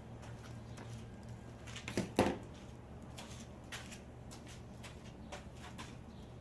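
Scattered light clicks and knocks from hands fitting parts of a truck headlight assembly, with one louder knock about two seconds in, over a steady low hum.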